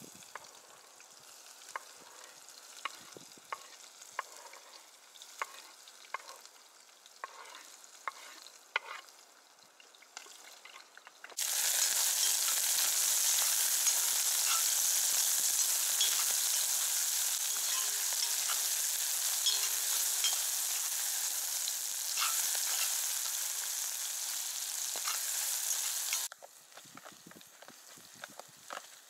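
Chopped carrots and onion frying in hot oil in a pot over a small wood-burning camp stove, stirred with a spoon. At first a fainter sizzle with scattered pops. From about 11 seconds in until near the end, a loud, steady sizzle.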